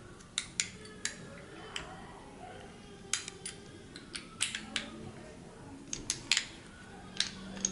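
Light, irregular metallic clicks and taps of a small hand tool against the metal body of an Aqualung Titan scuba regulator first stage as a plug is screwed into it by hand.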